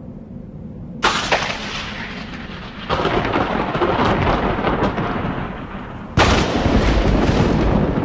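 Thunder over a low steady rumble: a sharp crack about a second in that dies away, a long roll from about three seconds, and the loudest clap near the end, which keeps rumbling.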